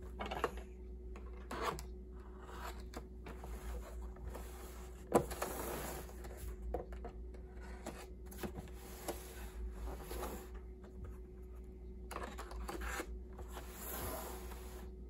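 Small knife scraping and cutting at a cardboard package in short, irregular strokes, with one sharp tap about five seconds in.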